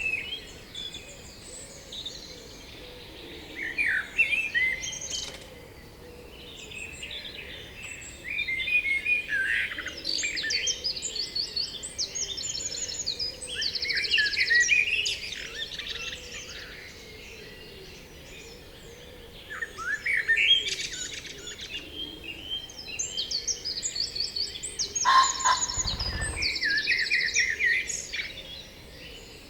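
Several songbirds singing in spring, with overlapping chirps, whistled phrases and fast trills coming in bursts and quieter gaps in between. Near the end there is a brief low rumble.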